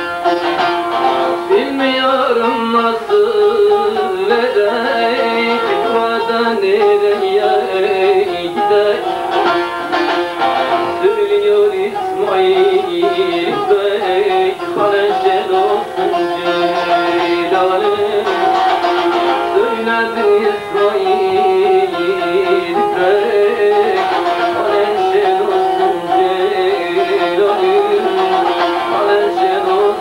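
Bağlama (saz), a long-necked Turkish lute, played with quick, continuous strummed and plucked notes.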